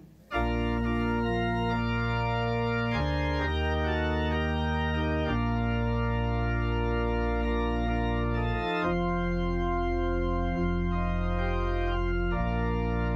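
Organ music of sustained, held chords that change every few seconds, starting suddenly right after the closing amen: the organ postlude ending the service.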